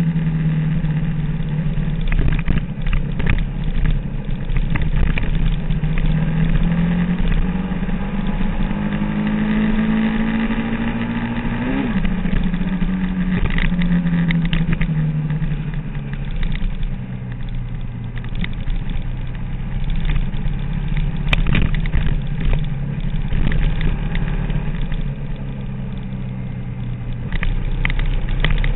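Sport motorcycle engine running hard at track speed, with wind rush: the pitch climbs steadily, drops suddenly at an upshift about twelve seconds in, then falls away as the throttle is eased and settles lower for the rest.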